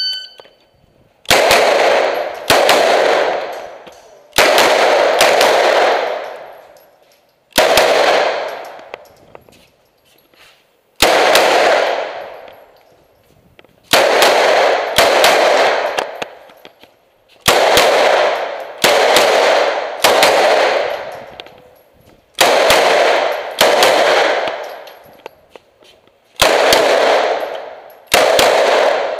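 Shot-timer start beep, then an Uzi submachine gun fired semi-automatically, mostly two shots about a second apart at each target. Each shot has a long echoing tail that fades over a second or two inside the shoot house.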